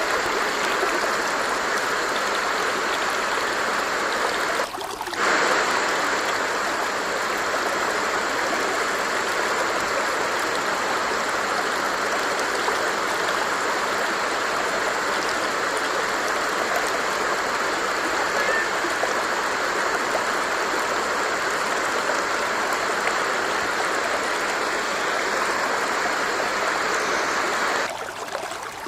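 Water stream flowing steadily, a continuous rushing hiss. It dips briefly about five seconds in and drops to a quieter level near the end.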